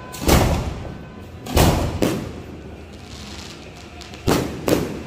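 3-inch aerial firework shells going off: five sharp booms, each with an echoing tail. The first comes just after the start, two more follow close together over a second later, and a final close pair comes near the end.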